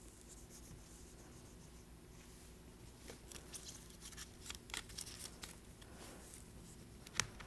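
Faint crinkles, scratches and small clicks of a thin plastic screen-protector film being handled and pressed down by fingers onto an iPod Touch screen. The clicks cluster around the middle, with one sharper click near the end, over a steady low hum.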